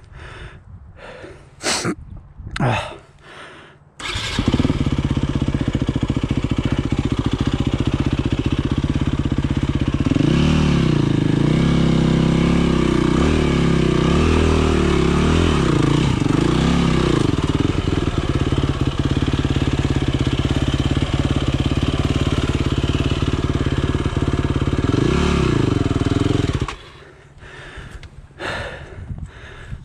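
Dirt-bike engine catching about four seconds in and running, revved up and down several times, then cutting out abruptly a few seconds before the end.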